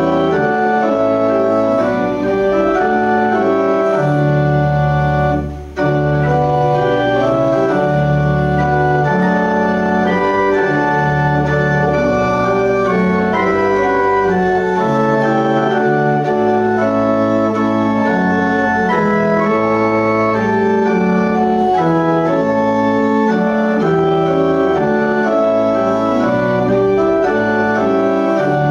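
Church organ playing slow, held chords in a hymn-like progression, with a brief break between phrases about six seconds in.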